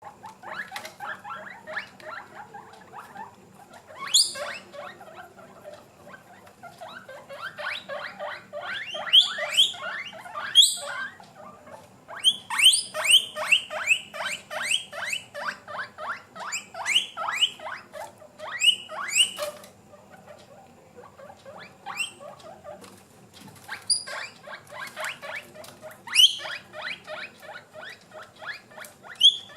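Guinea pigs wheeking: rapid runs of short squeaks broken by loud, shrill rising whistles, coming in bouts. It is the food-begging call of hungry guinea pigs.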